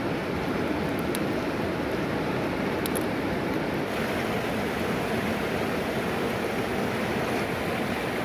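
River rapids rushing steadily over rocks, with a couple of faint ticks near the start.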